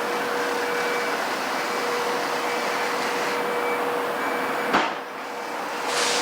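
Heavy construction machinery running steadily, a continuous engine noise with a held tone. About five seconds in there is a sharp click, after which the sound drops briefly and comes back.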